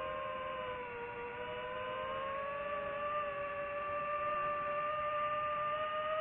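DJI FPV drone's motors and propellers whining in flight, the pitch climbing a little a couple of seconds in as the throttle comes up.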